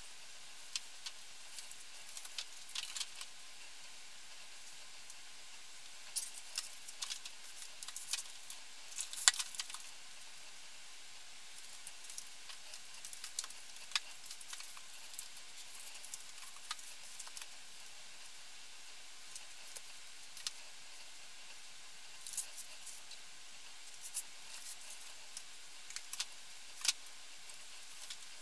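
Books being handled and set onto a bookshelf: irregular light knocks, clicks and rustles over a steady hiss, the sharpest about nine seconds in.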